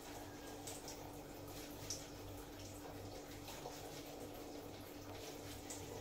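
Faint, soft clicks and taps of hands handling pieces of fish on a wooden cutting board, over a steady low hum. One slightly louder tap comes about two seconds in.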